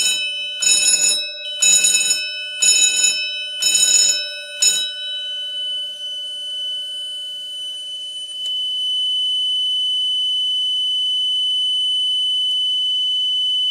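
Fire alarm system sounding: an alarm signal pulsing about one and a half times a second, which stops about five seconds in. A steady high-pitched buzzer tone carries on under it and then alone, and cuts off suddenly near the end.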